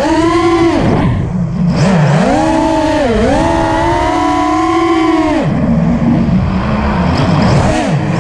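Brushless motors and propellers of a 5-inch FPV racing quadcopter, heard from the onboard camera: a loud buzzing whine whose pitch climbs and falls with the throttle, dropping sharply about a second in and again around three seconds in, then settling to a lower, wavering pitch from about five and a half seconds before dipping once more near the end.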